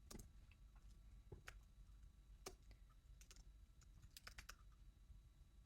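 Faint, scattered keystrokes on a computer keyboard: single clicks at irregular intervals, then a quick run of about four about four seconds in.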